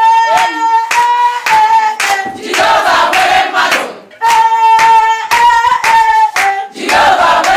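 Call-and-response chanting with clapping: a single high voice holds long notes twice, and a group answers together between them.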